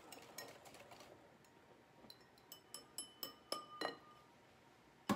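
Wire whisk stirring chocolate batter in a glass mixing bowl: soft scraping at first, then around a dozen light, ringing clinks of the whisk against the glass in the second half. A single dull knock comes at the very end.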